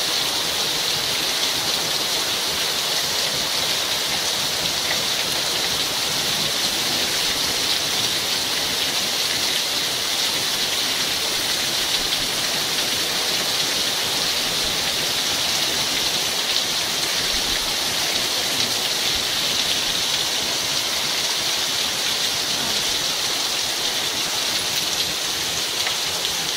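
Heavy steady rain from a tropical storm, a constant hiss of downpour.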